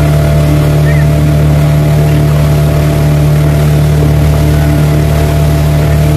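Speedboat engine running steadily at an even pitch, heard from aboard the boat.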